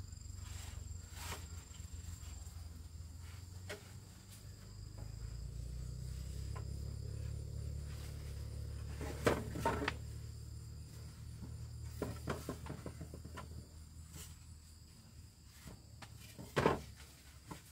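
Steady high insect chirring over a low hum, with a few sharp knocks: a pair about nine seconds in, a cluster around twelve seconds and a single loud one near the end. The hum fades out about fifteen seconds in.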